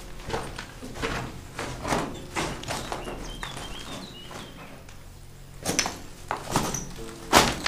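Footsteps walking at a steady pace, about two steps a second, with a few louder steps near the end.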